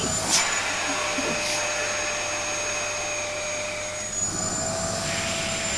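Vacuum cleaner running steadily, a whine over rushing air, its note shifting slightly about four seconds in.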